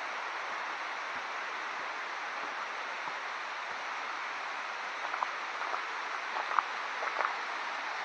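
Steady rush of flowing water from a stream in the gorge, with a few light taps in the second half.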